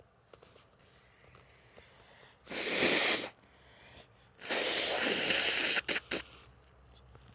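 A person blowing their nose hard: one long blow about two and a half seconds in, then a longer one about four and a half seconds in, ending in two short blows.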